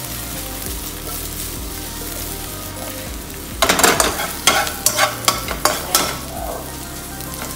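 Chopped green onions sizzling in hot oil in a thin nonstick wok. About three and a half seconds in, a slotted spatula starts stirring them, scraping and knocking against the pan in quick, irregular strokes.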